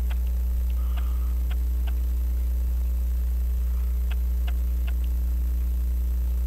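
Steady low electrical mains hum, unchanging throughout, with a few faint, scattered light ticks about a second apart.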